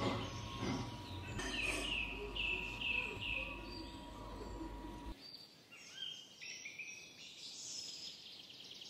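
Birds chirping in short repeated falling calls, over a low hum and a faint steady high tone that cut off abruptly about five seconds in.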